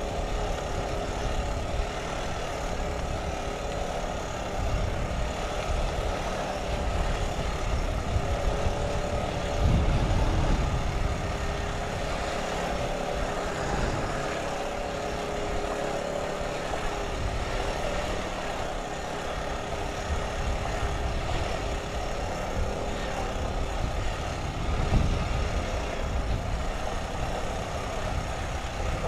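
ATV engine running steadily under way on a dirt trail, with an uneven low rumble beneath it that swells louder about ten seconds in and again near the end.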